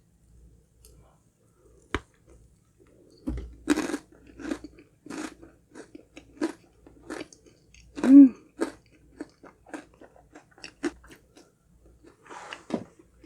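Close-miked chewing of honey crunch cake, a crunch with each chew about once or twice a second as the crunchy honeycomb bits break, after a single sharp click.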